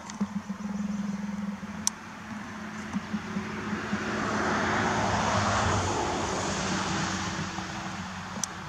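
A vehicle going by: a broad noise that swells to a peak around the middle and then fades, over a low steady hum, with a couple of sharp clicks.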